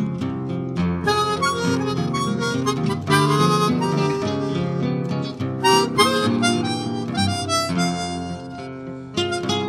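Background music: a melody line of held notes over a plucked accompaniment.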